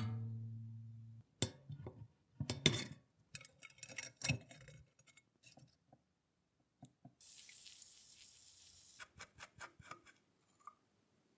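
Rusty cast-iron coin bank parts being handled and worked with pliers and a screwdriver: a clunk at the start that rings on for about a second, then scattered metal clicks and scrapes, a steady hiss for about two seconds, and more clicks.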